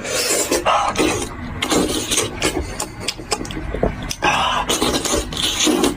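Close-miked eating sounds of a person chewing and gnawing sheep trotters: irregular wet mouth clicks, smacks and rasping bites.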